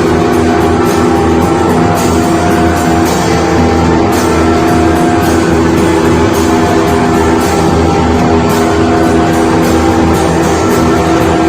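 A band rehearsing loud, dense noise-rock in a krautrock style, with guitar over steady held droning notes and no break.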